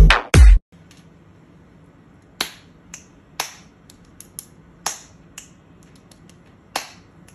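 A burst of electronic dance music cuts off about half a second in. Then come finger snaps over a quiet room: several sharp, loud snaps spaced about half a second to a second and a half apart, with fainter ticks between them.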